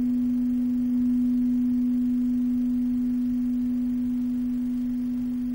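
A single sustained, nearly pure low electronic tone from a computer-generated ambient music piece, swelling slightly about a second in and then fading slowly. The music is generated in real time by software from the light level that a photoresistor measures in the room.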